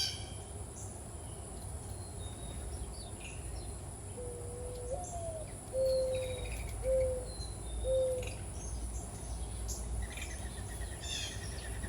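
Birds calling: a low cooing call of four hoots, the first longer and rising, the next three short, about halfway through, with small birds chirping higher up and a steady insect hum.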